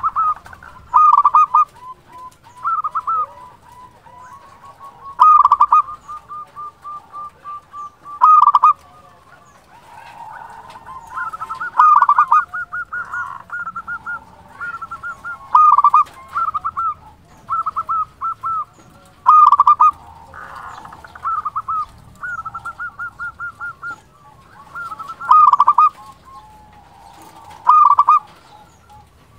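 Zebra dove (perkutut) cooing: loud phrases of quick, clipped coo notes repeated every two to four seconds, with softer rapid runs of notes between them.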